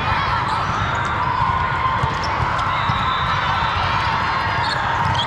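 Steady din of a large sports hall with volleyball games going on, with balls being hit and bouncing over a constant background of many distant voices.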